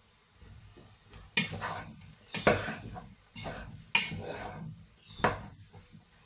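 Slotted wooden spatula stirring diced vegetables in a nonstick frying pan. It knocks and scrapes against the pan about five times, roughly once a second, starting about a second in.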